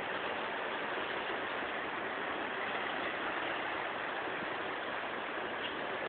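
Sea surf washing over a rocky shore: a steady, even rush of water noise.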